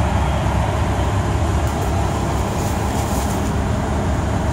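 Dennis Trident double-decker bus engine running, a steady low drone heard from inside the cabin, with faint rattles in the middle.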